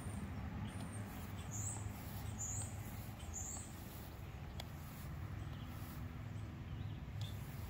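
A small bird chirping three short high notes about a second apart, over a steady low rumble.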